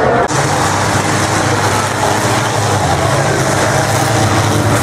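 Engines of several banger racing cars running on the track, a steady low drone under a wash of noise.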